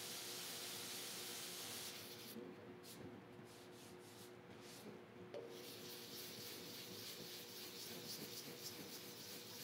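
Faint dry hand-sanding with 400-grit sandpaper on a painted steel motorcycle fender, feathering out the edges of a paint chip down to bare metal. The sanding is steady at first, breaks into short separate strokes for about three seconds in the middle, then runs steadily again.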